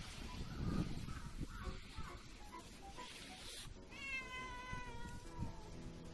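A cat gives one long meow, about a second and a half, that falls slightly in pitch, a little past the middle. Before it there is soft rustling and handling noise as the cat is stroked.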